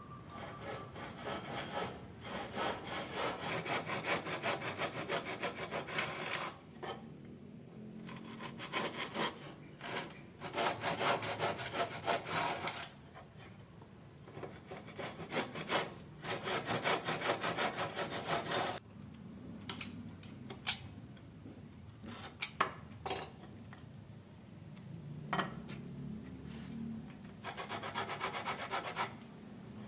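A hand tool worked against wood in bouts of quick, rasping strokes, each bout a few seconds long with short pauses between, and a few sharp knocks in one of the pauses.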